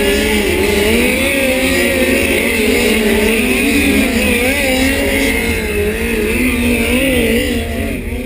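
Several midget race cars running hot laps, their engines rising and falling in pitch as they go around the track.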